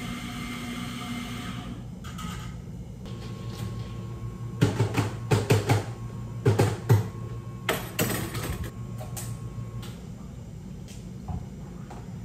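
Cafe counter work: a steady machine hum, with a burst of sharp clattering knocks and clinks of cups and utensils from about four to nine seconds in.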